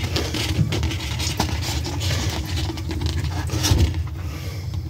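Inflated latex balloons rubbing and scraping against each other and against hands as they are handled and pushed onto a plastic balloon clip, a run of many short irregular rubbing strokes.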